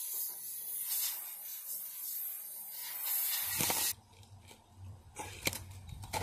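Compressed air from an air-compressor blow gun hissing into a camper furnace to blow out debris, varying in strength. It stops abruptly about four seconds in, leaving a faint low rumble and a few light clicks.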